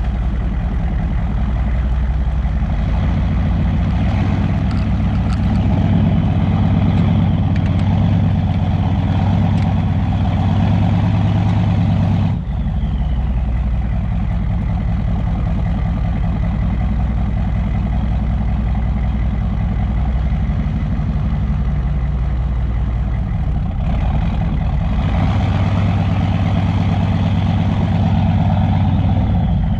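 Chevy K2500's 6.5-litre turbo-diesel V8 running through a 4-inch straight pipe with a steady low rumble. Its note changes briefly about twelve seconds in and again shortly before the end.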